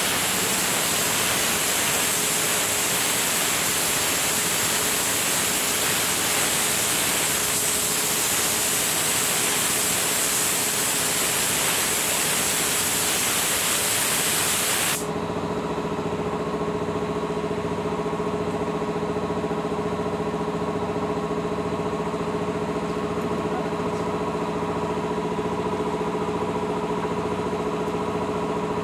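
Air spray gun hissing steadily as it sprays paint onto a steel door, cutting off abruptly about halfway through. It is followed by a steady motor hum with a faint regular pulse.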